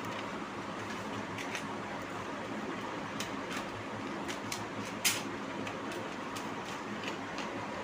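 Steady room hum and hiss, with a few short clicks and scratches of a ruler and pen on paper, the sharpest about five seconds in.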